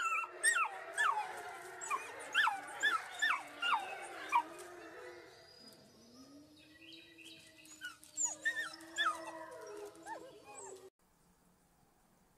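Wolf pups howling together: a quick string of short, high howls that each fall in pitch, then a long, low howl with more short high howls over it. The howling cuts off suddenly about eleven seconds in.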